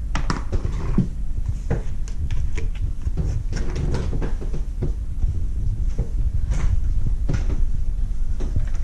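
Handling noise from slime supplies being set up: scattered short clicks and knocks of a glue bottle and measuring cup, over a steady low rumble.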